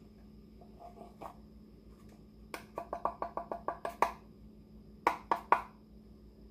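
The wooden drawer of an antique hand-crank coffee grinder knocked against the rim of a small glass jar to shake out finely ground coffee: a quick run of about ten light taps, then three sharper knocks about a second later.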